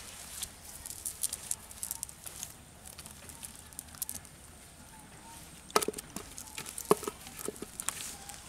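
Cast net rustling and crackling as it is handled on grass, with scattered small ticks and a few sharper knocks in the last third.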